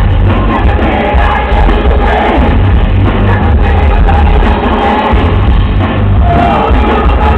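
Loud live heavy-metal music played on amplified cellos and a drum kit.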